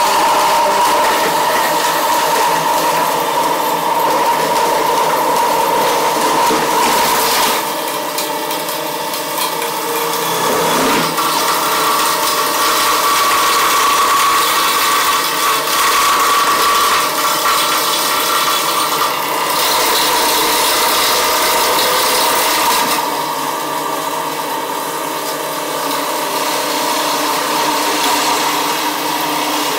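CNC milling machine's end mill cutting into a plastic spool wound with brass wire: a steady spindle whine over continuous rattling, chattering cutting noise. The noise changes a few times as the cutter moves along the spool and gets a little quieter near the end.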